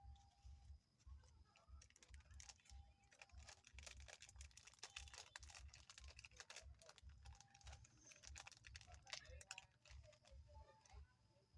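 Dog chewing and smacking its lips while eating cake: faint, rapid wet clicks and crackles over soft, quick low thumps of the jaw, two or three a second.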